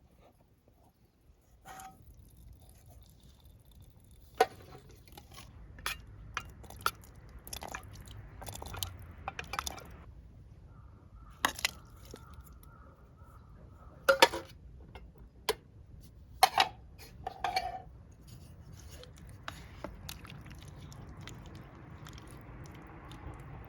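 Cooking utensils and dishes handled during outdoor cooking: scattered clinks and knocks of metal and glass, a dozen or so sharp ones over the middle of the stretch. A faint steady hiss comes in near the end.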